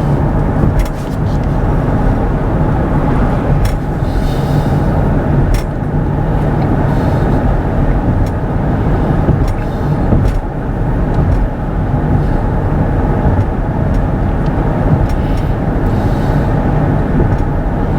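Steady road and tyre rumble inside a moving Kia EV6 electric car at road speed, with a few faint knocks from bumps in the road.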